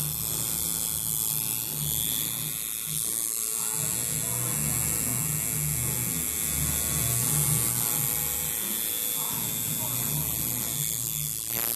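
Coil tattoo machine buzzing as it works the needle into skin: a steady low electric buzz whose strength wavers.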